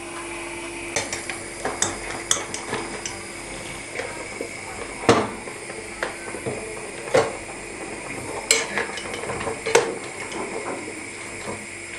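Metal wire-mesh skimmer clinking and scraping against a stone-coated pot as blanched dried peppers and eggplants are scooped out of the cooking water. The knocks are irregular, the loudest about five seconds in, over a steady hum.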